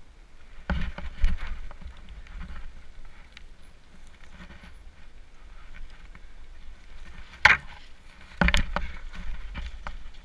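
Mountain bike rolling over rocky dirt trail, its frame and parts rattling with irregular knocks as the tyres hit rocks, over a steady low rumble. A cluster of knocks about a second in, a sharp clack about seven and a half seconds in and a heavier thud a second later.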